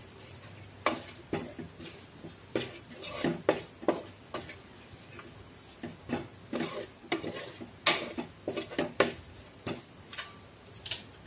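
A spatula stirring and scraping a thick onion-and-spice masala in a steel pot. It knocks against the pot's sides and bottom at irregular intervals.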